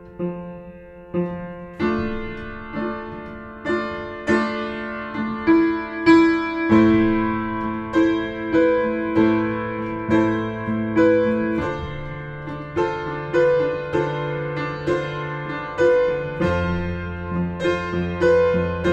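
Piano music: repeated notes struck in a steady pattern over a bass line that changes every few seconds, growing louder about two seconds in.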